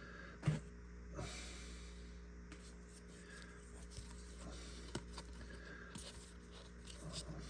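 Faint handling of paper trading cards: soft rustling and a few light taps, the loudest about half a second in.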